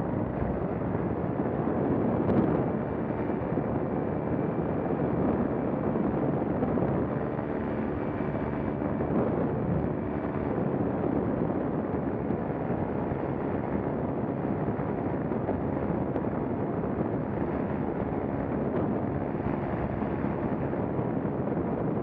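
Paramotor engine and propeller running steadily in flight, with heavy wind noise on the microphone from strong, gusty wind.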